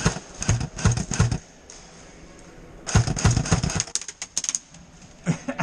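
Airsoft guns firing on full auto: two long bursts of rapid clicking shots at about five or six a second, and a few more shots near the end.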